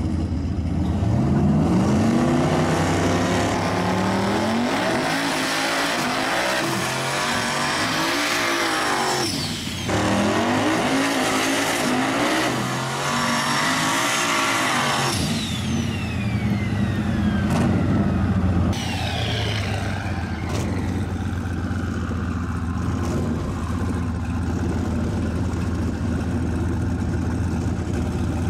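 Two drag cars doing burnouts at the start line: engines revving, rising in pitch over the first few seconds, then a long spell of spinning tyres squealing with the engines held at high revs, which cuts off about halfway. After it comes a falling whistle, and the engines run on more steadily.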